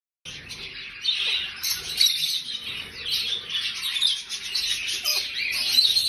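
Many birds chirping and chattering at once in a dense, unbroken chorus.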